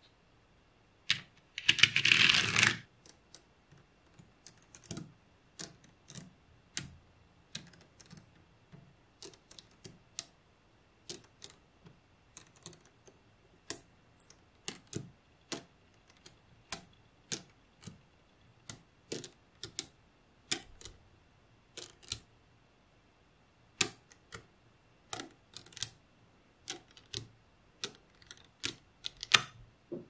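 Small nickel-plated magnet balls clicking as they snap onto one another, with irregular sharp clicks about once or twice a second. About two seconds in there is a short rattling clatter of many balls.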